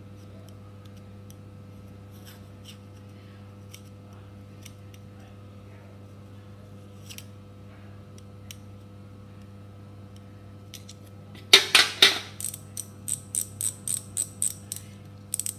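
Faint ticks of a screwdriver tip working a rubber seal into a Shimano freehub body, over a steady low hum. Near the end, a loud handling noise, then a quick run of clicks, about three or four a second: the freehub body being turned by hand, its freshly oiled pawls ratcheting.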